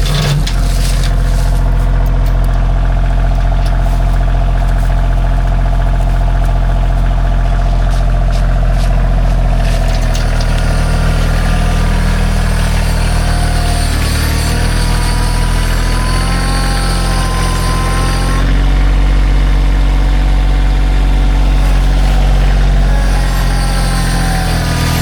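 A vehicle engine running steadily, its note shifting about ten seconds in and again a few seconds later, as under changing load.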